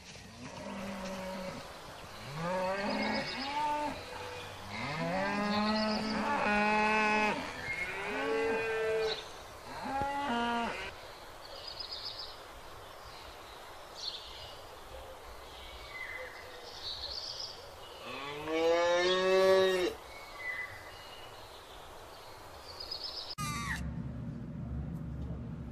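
Cattle mooing: a run of long, pitched calls over the first ten seconds or so, then one more long call about two-thirds of the way through.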